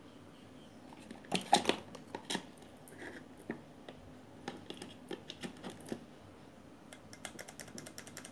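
Scattered light clicks and taps of small parts of an electric iron being handled during repair, ending in a quick flurry of small ticks.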